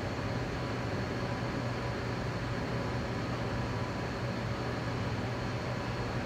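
Steady mechanical hum and hiss: a constant low drone with a faint high whine above it, unchanging throughout.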